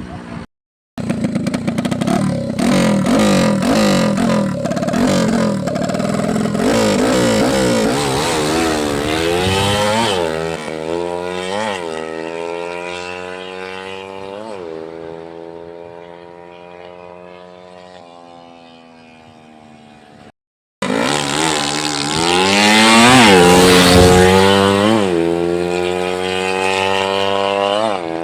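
A freshly overhauled motorcycle engine on a test run, revving up with repeated sharp climbs and drops in pitch. It fades steadily as the bike pulls away, then comes back loud and peaks near the end as it runs close by.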